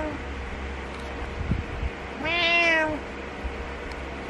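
Orange-and-white tabby cat meowing at its owner to wake them up. One drawn-out meow comes about two seconds in, rising slightly then falling, after the end of an earlier one, with a brief soft thump just before it.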